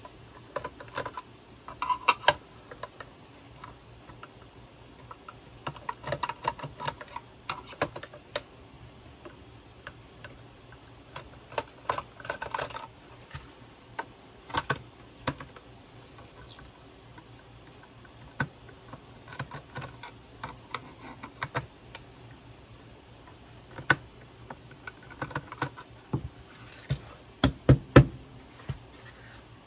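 Screwdriver backing self-tapping screws out of a plastic fan housing: irregular runs of small clicks and ticks as the screws turn and the driver shifts in the plastic. A few louder knocks near the end as the plastic housing is handled.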